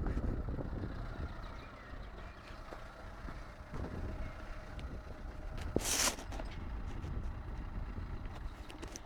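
Off-road 4x4 engine running with a steady low rumble, with one short hiss about six seconds in.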